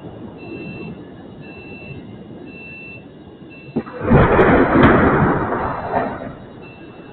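Cruise missile explosion: a sharp crack about four seconds in, then a loud blast lasting about two seconds, with another crack near its end. A repeating high beep sounds in the background.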